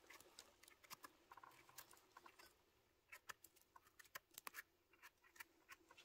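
Footsteps on dry forest litter: faint, irregular crackles and snaps of twigs and needles underfoot.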